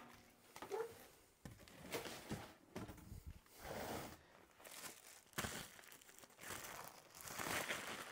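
Packaging crinkling and rustling in irregular bursts as a mailer is handled and opened, with a few light knocks.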